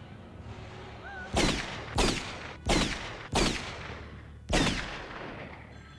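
Five loud gunshots from the film's soundtrack, fired at uneven intervals over about three seconds, each one ringing out in a long fading echo.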